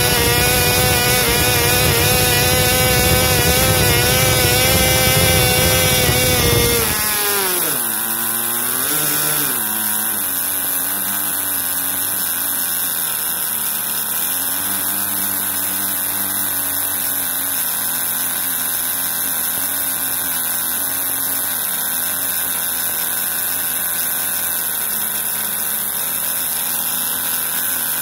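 Cox two-stroke glow model engine with a two-blade propeller running at full throttle, near 14,400 rpm, then about seven seconds in its exhaust throttle ring is closed and it drops sharply in pitch, wavers briefly, and settles to a steady low idle near 5,000 rpm.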